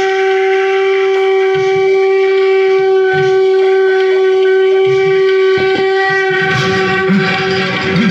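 Conch shell (shankh) blown in one long, steady note that stops about six and a half seconds in, with a few low drum thumps beneath it; music then swells in.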